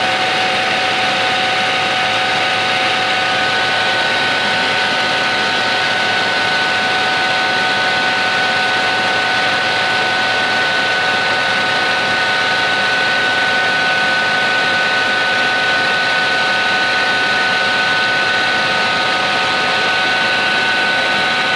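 Cabin noise inside a Sikorsky S-76 twin-turbine helicopter in flight: a steady rush of rotor and engine noise with several high, steady turbine whine tones.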